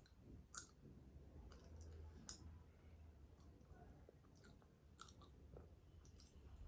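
Faint chewing of soft sweets: quiet wet mouth clicks and smacks, a few scattered through, with the loudest about two seconds in.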